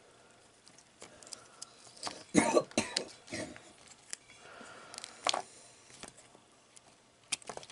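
Acorns in their split shells handled in a metal dish, with scattered light clicks and knocks of shell against shell and against the metal. A cough-like burst comes about two and a half seconds in and is the loudest sound.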